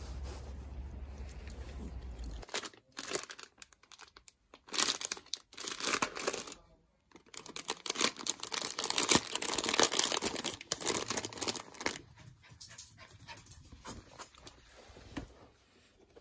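Clear plastic packaging bag crinkling and rustling in loud irregular bursts as it is handled and opened, tapering to quieter rustles near the end. A low steady rumble fills the first couple of seconds.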